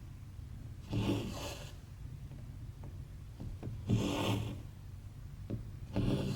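Embroidery thread being pulled through cross-stitch fabric, a rasping rub repeated three times a few seconds apart, with a few faint ticks between the pulls.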